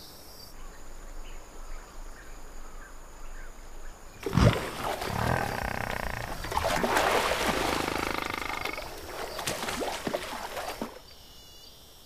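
A sudden thump about four seconds in, then several seconds of loud bellowing from a water buffalo, which stops shortly before the end.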